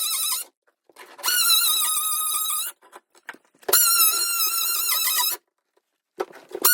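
Oscillating multi-tool with a diamond blade grinding into cured thinset beneath a tile to cut a cavity for a leveling clip: a high, slightly wavering whine in repeated runs of about a second and a half with brief pauses between.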